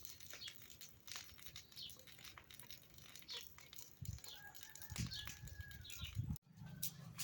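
Birds chirping in short, repeated calls, with rustling and a few soft thumps; from about four seconds in a steadier held call joins. The sound drops out suddenly for an instant near the end.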